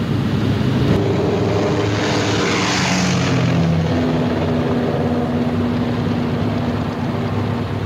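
Propeller-driven B-17 Flying Fortress bomber's radial engines running at takeoff power, a steady drone. A rushing hiss swells to a peak about three seconds in and then fades, as the aircraft passes close by.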